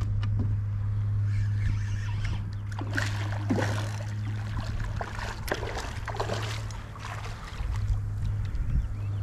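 A hooked redfish splashing at the water's surface as it is fought on the line beside a kayak, in a burst about three to four seconds in and again between about five and a half and seven seconds, over a steady low hum.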